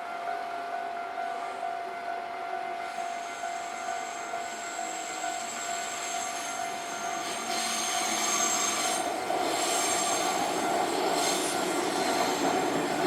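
Level-crossing warning bell sounding steadily as a train comes through the crossing. From about three seconds in, the train's wheels squeal high on the rails, and from about seven seconds the train's rolling noise gets louder.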